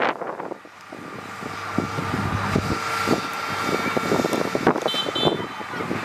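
Heavy equipment diesel engine running steadily, with irregular clatter, and two short high beeps about five seconds in.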